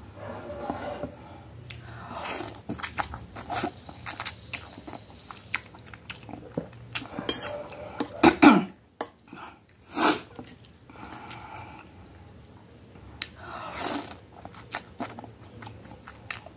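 Close-miked chewing and biting of instant noodles, with many small wet clicks and a couple of louder sharp mouth sounds about eight and ten seconds in.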